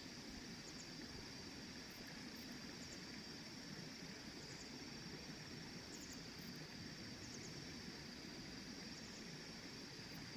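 Faint outdoor ambience: a steady high-pitched insect drone, with a few short, faint high chirps scattered through it.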